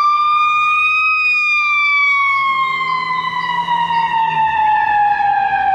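Ambulance siren sounding a slow wail: one long tone that climbs slightly for about a second, then glides steadily down in pitch.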